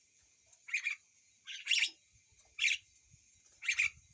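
Hill myna giving four short, raspy cough-like calls about a second apart, imitating a person coughing.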